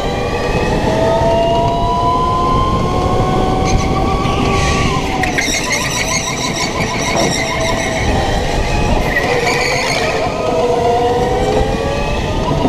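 Indoor rental go-kart at speed heard from the driver's seat: its motor whine rises and falls with speed, and the tyres squeal and scrub through the corners twice, about four and nine seconds in, as the understeering kart pushes.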